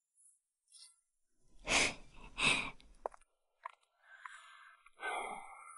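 A person's breath: two short, breathy exhales about half a second apart, around two seconds in, followed by faint hiss.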